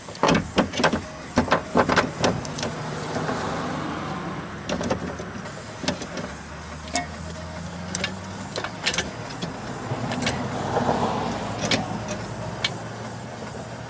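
Metal clicks and knocks of hand tools during car suspension work, coming in a quick cluster at first and then one at a time, over a steady low hum.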